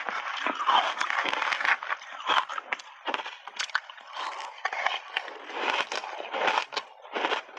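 A metal spoon scraping and digging through a bowl of powder-coated ice, then a mouthful of ice being crunched between the teeth in dense, crackling bites.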